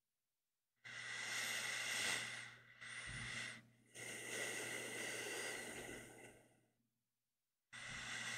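Slow, deep breathing of a person asleep close to the microphone: long breaths in and out, each a couple of seconds long, with a short pause before the next breath begins near the end.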